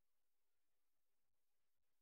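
Near silence: a black-screen gap in the upload with only faint hiss.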